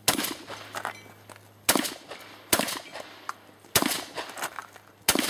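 Shotgun fired five times in a stage string, at uneven intervals of about one to one and a half seconds, each shot loud and sharp with a short ringing tail.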